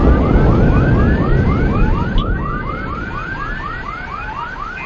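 A car alarm going off, rising whoops repeating about four times a second, over a deep rumble that fades away over the first few seconds. The alarm is set off by the shock of a skyquake boom.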